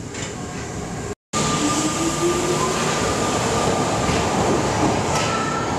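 Tokyo Metro Marunouchi Line subway train running. For about a second it is heard from inside the car. After a sudden cut it is heard louder from the platform as the train moves past, a steady rumble with an electric motor whine that rises in pitch.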